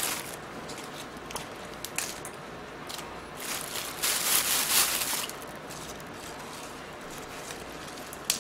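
A thin plastic bag rustling and crinkling as lettuce leaves are pulled out of it, loudest for over a second a little past the middle, with a few small clicks before.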